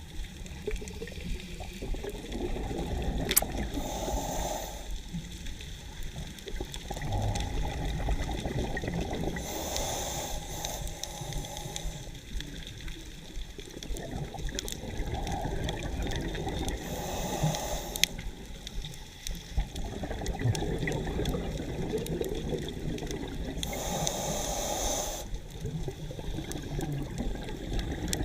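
Underwater sound of a scuba diver breathing through a regulator, with a steady low rush of water. Four bursts of exhaled bubbles come about every six to seven seconds.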